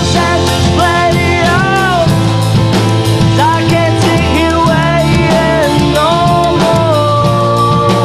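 Pop-rock band playing live: a male lead vocal sings a bending melody over electric guitar, bass guitar and drum kit, ending on a long held note near the end.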